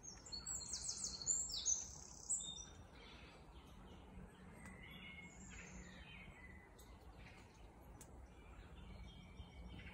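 Woodland songbirds singing: one bird gives a loud, fast song of high trilled notes lasting about two seconds, then fainter chirps and calls from other birds follow.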